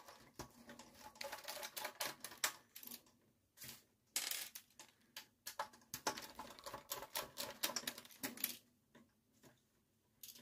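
Irregular small metallic clicks and taps of a screwdriver working the screws out of an amplifier's steel back panel, pausing briefly about three seconds in and again near the end.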